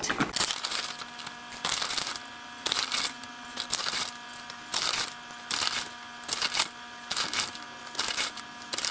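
A teaspoon scooping Epsom salt (magnesium sulfate) granules and tipping them into a cup of water, over and over: short scraping, crunching sounds about once a second.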